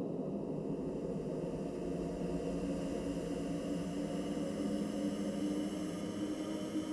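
Dark, steady horror-ambience drone: low sustained tones with a hiss that slowly swells and brightens.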